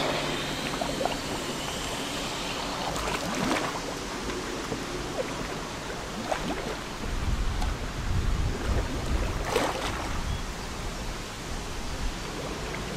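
Lake water splashing and lapping as a scuba diver submerges, then bubbles from the diver breaking the surface, with a few sharper splashes. A low rumble of wind on the microphone comes in for a few seconds in the middle.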